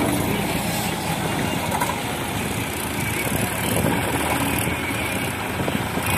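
Eicher tractor's three-cylinder diesel engine running steadily as it pulls a trolley fully loaded with sand.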